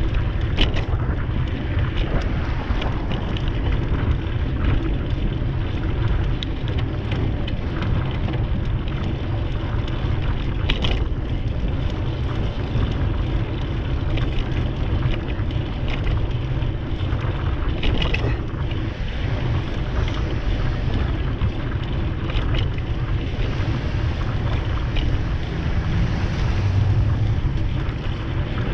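Wind buffeting the microphone of a camera on a moving bicycle, a steady low rumble, with a few sharp clicks scattered through it.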